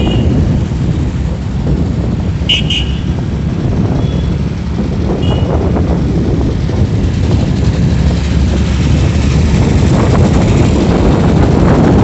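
Vehicle running through town traffic, with wind buffeting the microphone as it moves. A short high beep sounds about two and a half seconds in, with fainter ones soon after.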